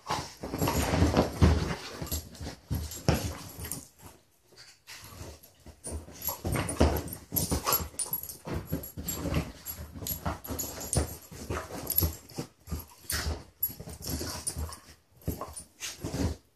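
Two beagles play-fighting: play growls and snarls mixed with scuffling and thumps on couch cushions, in irregular bursts with a short lull about four seconds in.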